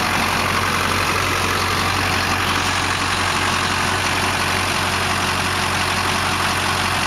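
2004 GM Duramax LB7 6.6-litre V8 turbodiesel idling steadily with its diesel clatter. Its fuel injectors are failing, which the owner blames for white smoke from the exhaust.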